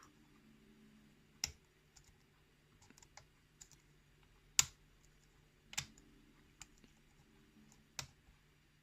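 Faint metallic clicks of a pick working the pins of a pin-tumbler lock cylinder held under tension, during single-pin picking. Four sharper clicks stand out among smaller ticks, the loudest about halfway through.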